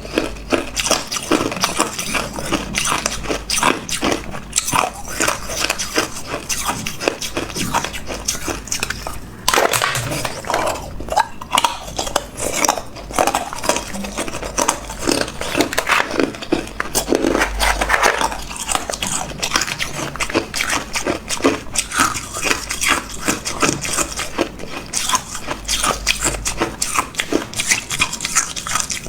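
A person biting and chewing hard ice: a continuous, irregular run of sharp crunches and cracks, several a second.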